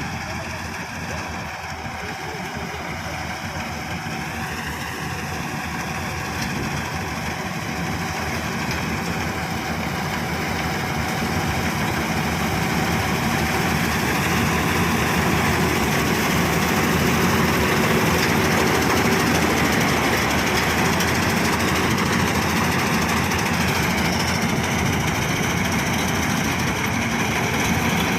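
Combine harvester's diesel engine running steadily, growing gradually louder.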